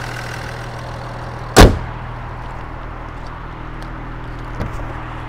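A car bonnet slammed shut about a second and a half in, a single loud thud, over the steady low hum of the Mercedes-AMG E53's 3.0-litre inline-six engine idling. A lighter knock follows near the end.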